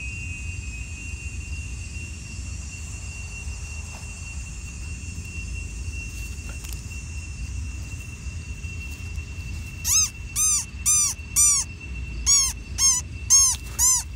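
Crickets trilling steadily over a low outdoor rumble. About ten seconds in, a run of about ten short high squeaks begins, each one rising and falling in pitch, about two a second.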